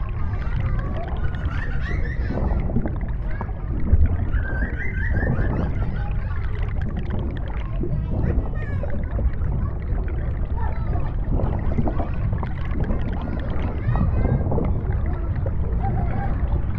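Underwater ambience: a steady low rumble with muffled, wavering higher sounds drifting over it.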